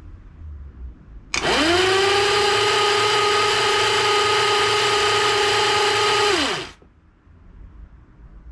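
The electric motor of a home-built roller starter spins up with a quickly rising whine, driving the rollers that turn a Velocette 500's rear wheel in neutral. It runs at a steady pitch over a low rumble for about five seconds, then winds down and stops.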